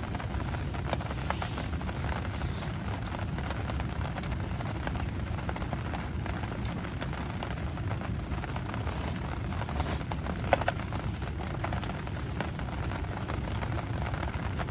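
Steady rain falling, with a wood campfire crackling now and then; one sharp pop about ten and a half seconds in.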